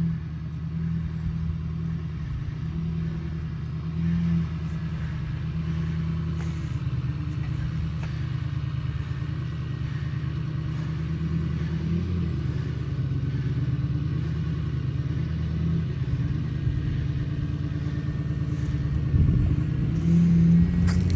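Ford F-250's Power Stroke V8 diesel engine running steadily at low revs as the truck crawls up a rutted off-road slope, with light swells in engine speed and a few faint knocks.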